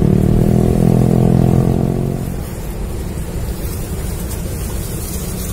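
A motor engine runs steadily for about two seconds, then fades away, leaving a steady low rumbling noise.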